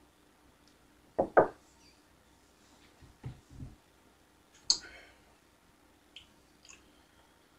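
Mouth sounds of a person tasting a sip of beer: a loud breath about a second in, a few low swallowing sounds around three seconds, then a sharp click near five seconds and two faint lip clicks.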